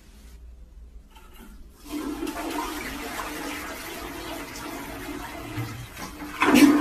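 A flush toilet flushing: water rushes into the bowl from about two seconds in and keeps running, then swells louder near the end.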